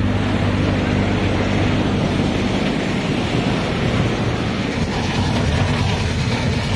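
Mini combine harvester running off a Mahindra Arjun 605 diesel tractor: a loud, steady rush of threshing machinery, belts and pulleys, over the tractor engine's drone.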